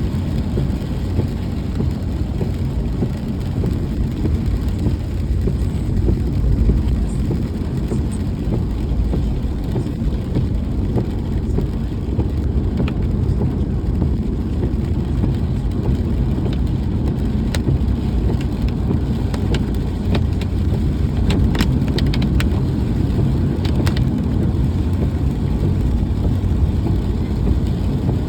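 A car driving in the rain: a steady low rumble of engine and road noise, with a scattering of sharp ticks in the second half.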